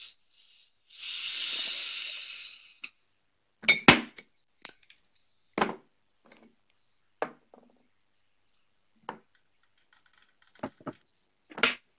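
A hiss lasting about two seconds, then a scattered series of sharp clicks and clinks as small hard objects, vape gear and tools, are handled and set down, about nine in all.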